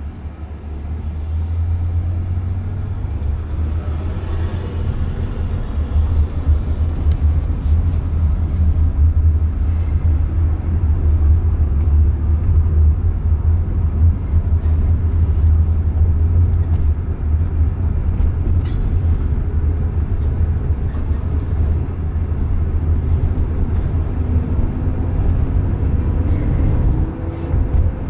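Low road and tyre rumble inside the cabin of a Waymo Jaguar I-PACE, an electric car with no engine sound, as it pulls away and drives on. The rumble builds over the first couple of seconds, then holds steady.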